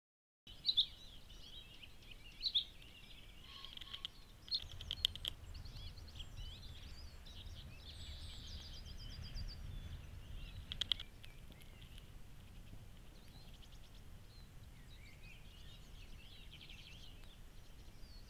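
Small songbirds singing and calling: scattered short, high chirps and quick trills, the loudest a few seconds apart. A faint low rumble runs beneath them through the middle.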